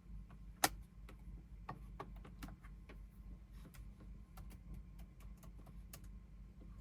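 Irregular light clicks and ticks, a dozen or more, with one sharp louder click just over half a second in, over a steady low hum.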